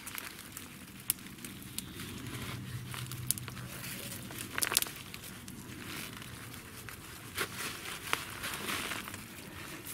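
Hands rustling through onion leaves and working in the soil to lift an onion bulb, with scattered crackles and clicks. There is a louder cluster of crackles about halfway through.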